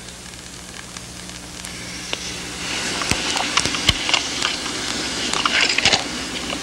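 Old film soundtrack: a low steady hum, then from about two and a half seconds in a rising hiss with crackling and scattered sharp pops.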